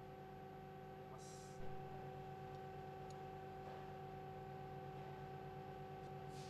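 Faint steady hum with one light metallic click about one and a half seconds in, as a steel support ring is set onto a cargo pump's lower seal support.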